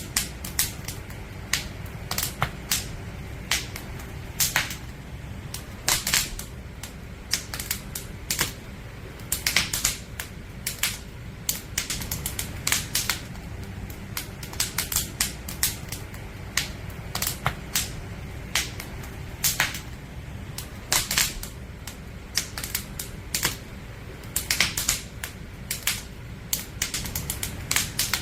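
Firewood burning in a campfire, crackling: irregular sharp pops and snaps, several a second, over a steady low rumble.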